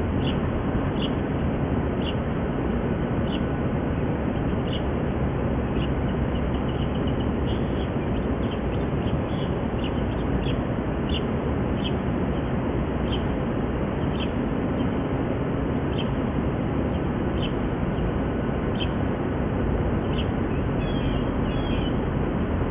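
Mallard ducklings peeping: short high peeps about once a second, in quicker runs at times, over a steady low rumble.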